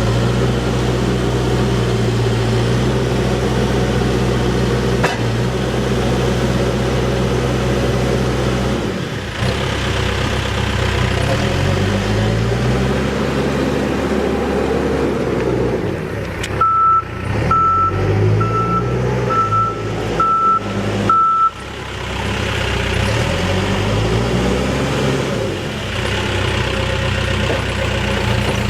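Case 580N backhoe's diesel engine running, its speed rising and falling several times. About two-thirds of the way through, its reversing alarm beeps six times, about once a second, as the machine backs up.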